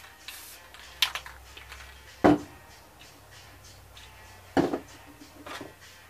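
Spray paint cans being handled and set down on a hard worktable: a short hiss of spray near the start, then a few knocks, the two loudest about two seconds in and about four and a half seconds in.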